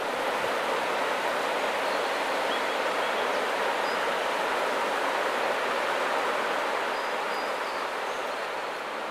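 Steady rushing of flowing water, a stream running.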